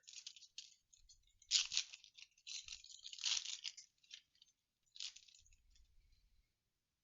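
Foil trading-card booster pack being torn open and crinkled in the hands, in irregular crackling bursts, the loudest two coming about one and a half to three and a half seconds in, with a shorter one near five seconds.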